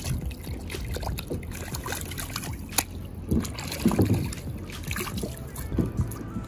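Water splashing and sloshing beside a plastic kayak hull as a muddy slide sandal is swished clean in creek water, then a hand swishes in the water; irregular small splashes with a single sharp knock near the middle.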